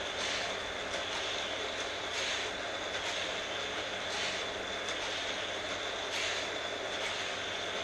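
Vintage Hot Wheels battery-powered booster stations running with a steady high-pitched whir. Die-cast cars rattle along orange plastic track and zip through a booster about every two seconds.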